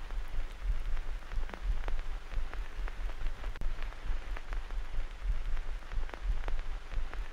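Rain falling: many irregular sharp drops over a steady low rumble.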